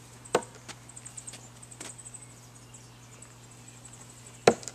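Thrown screwdrivers striking a wooden log-round target: two sharp knocks about four seconds apart, the second the louder, with a few faint knocks between. Faint insect chirping pulses high in the background.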